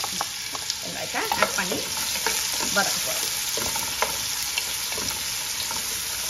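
Roughly chopped onions sizzling steadily in hot oil and ghee in a heavy-bottomed pan, being sautéed towards light golden brown. A wooden spatula stirs them, scraping against the pan, mostly in the first three seconds.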